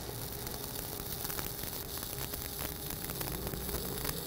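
Shielded metal arc (stick) welding with a 1/8-inch 7018 electrode: the arc burns steadily with a dense, even crackle of small pops, laying a horizontal fill pass at about 130 amps.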